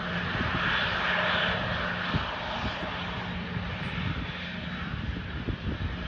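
Boeing 737-900ER's CFM56-7B jet engines running as the airliner moves slowly on the runway: a steady rushing hiss with a low hum and a faint whine, the hiss loudest about a second in. Gusts of wind buffet the microphone with irregular low thumps.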